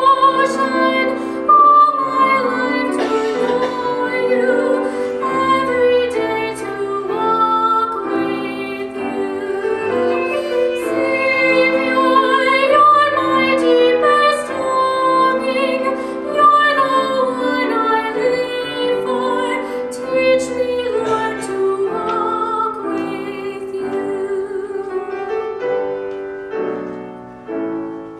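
A woman singing a hymn solo with piano accompaniment, holding long notes with vibrato; her singing pauses briefly near the end.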